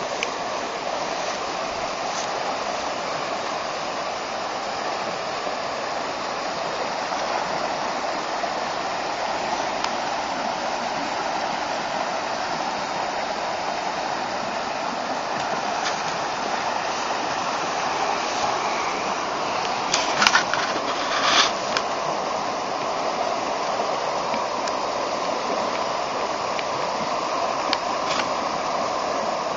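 Stream water rushing steadily through a culvert. A few brief knocks come about two-thirds of the way in.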